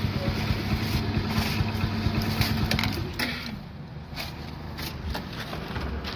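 A motor running with a steady hum, which winds down and stops about three seconds in; a few sharp clicks and knocks follow.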